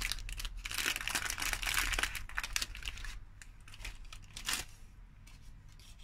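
Baking parchment crinkling as a cheesecake wrapped in it is slid onto a plate, dense through the first three seconds, then softer, with one short crackle about four and a half seconds in.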